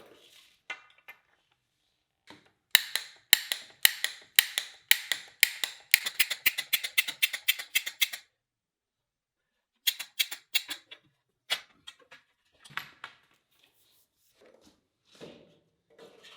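A run of sharp clicks that quickens over about five seconds, then stops. A shorter run of clicks follows, then a few softer knocks of handling.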